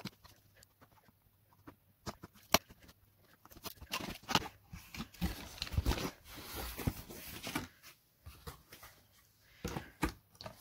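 A corrugated cardboard monitor box being opened by hand: flaps pulled apart and handled, giving irregular taps, scrapes and rustles of cardboard.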